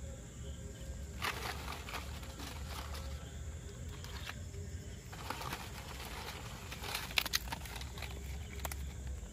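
Dry palm-leaf strips being gathered and snapped by hand for kindling, with irregular rustling and crackling. The sharpest snaps come about seven seconds in.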